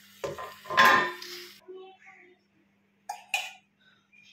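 Stainless-steel pots and utensils knocking and clinking: a few knocks in the first second and two more about three seconds in, with brief voice sounds among them.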